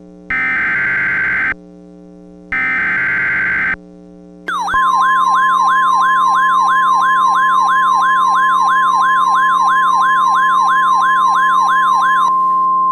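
Simulated NOAA Weather Radio alert. Two EAS (SAME) header data bursts, each about a second long with a second's gap between them. About four and a half seconds in, the steady weather-radio warning alarm tone begins, with a fast siren-like wail over it sweeping about three times a second. The wail stops near the end and leaves the plain tone; a faint steady drone runs underneath throughout.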